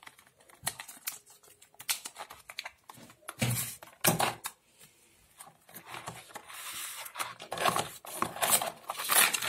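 Clear plastic blister tray of vaccine vials being handled and pried open: irregular clicks and crinkling plastic, loudest a few seconds in and again near the end.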